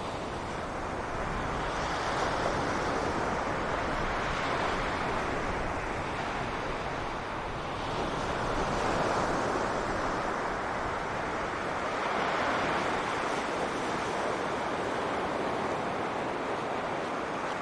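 Sea waves breaking and washing on a beach, the surf swelling and easing in slow surges every few seconds, with low wind rumble on the microphone.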